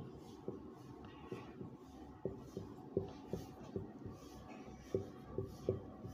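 Marker pen writing on a whiteboard: faint scratching strokes, then from about two seconds in a run of short, irregular taps as the tip meets and leaves the board.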